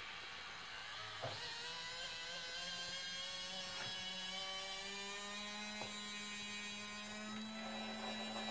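Tipper drive motor of an RC Mercedes Unimog model whining steadily as it lifts and lowers the tipper bed loaded with about 566 g of stones, without struggling. The pitch creeps slightly upward, with a few clicks along the way.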